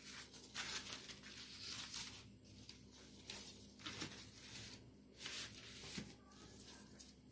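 Faint rustling of cut paper strips being handled and slid against a ruler, in several short rustles.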